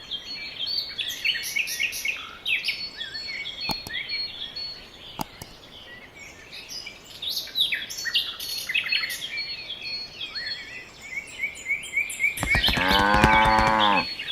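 Small birds chirping steadily, with a single cow moo about a second and a half long near the end.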